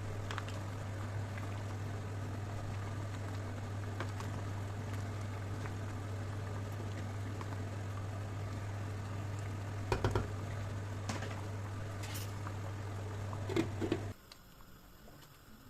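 Steady low hum and hiss of a running kitchen appliance, with a few light clicks of kitchen utensils. The hum stops abruptly near the end.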